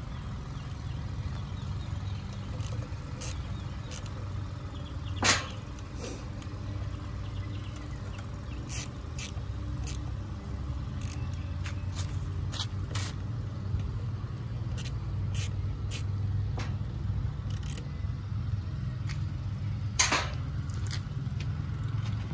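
Hand ratchet clicking in short, scattered runs while tightening the bolts of a throttle body on an LS intake manifold, with a louder knock about five seconds in and another near the end, over a steady low rumble.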